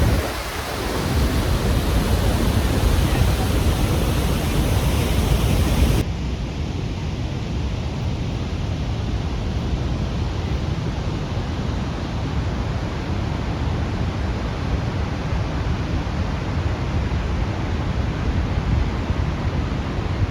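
Continuous rush of Niagara Falls' falling water, a dense even noise heaviest in the low end. About six seconds in it turns slightly quieter and duller.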